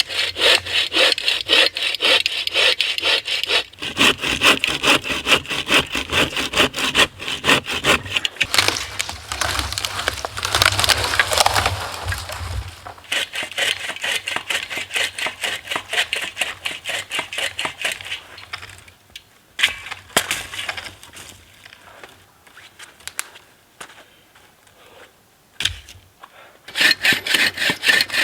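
Hand saw cutting through a dead standing spruce in fast, even back-and-forth strokes. The sawing pauses about two-thirds through, with a few sharp knocks, then starts again near the end.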